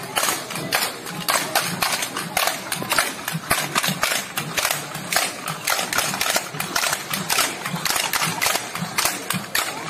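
Hand-held wooden percussion struck with sticks by many marchers at once: a steady rhythm of sharp wooden clacks, several a second.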